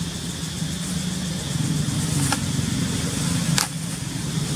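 A steady low engine hum, with two short sharp crackles of a plastic bag being handled, one a little past the middle and one about a second later.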